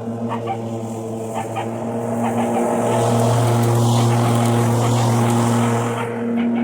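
Ryobi 40-volt battery lawn mower running with a steady electric hum from the motor and spinning blade, accompanied by a rushing hiss. The hum grows louder about three seconds in and eases again near the end.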